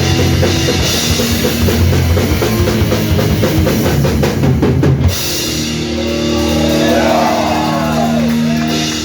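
Live crust punk band playing full-tilt, with fast drumming and distorted guitars. The band stops abruptly about five seconds in, leaving sustained amplified notes ringing with some wavering, gliding pitch.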